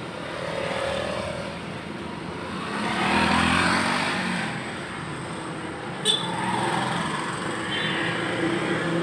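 Slow street traffic of cars and motorcycles passing. The loudest moment is a van driving past close by about three to four seconds in, with a sharp click about six seconds in.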